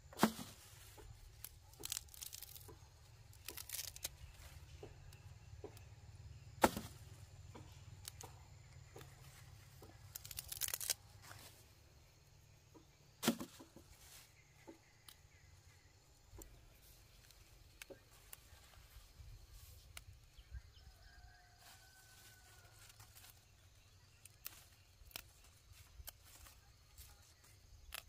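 White radishes being handled by hand as they are harvested: rustling and tearing of roots and leafy tops, with several sharp snaps in the first half, then fainter scattered crackles.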